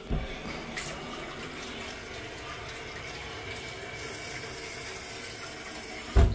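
Kitchen tap running steadily into a stainless steel sink, with a sharp knock near the end.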